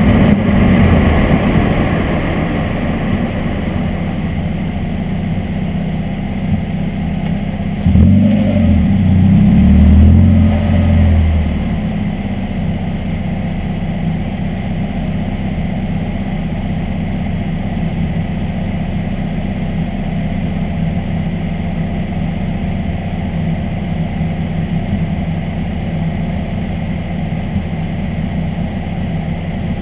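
Mazda Miata's four-cylinder engine, run by a MegaSquirt plug-and-play engine computer, easing off as the car slows. About eight seconds in there is a louder, deeper stretch of about three seconds, after which the engine idles steadily at a stop.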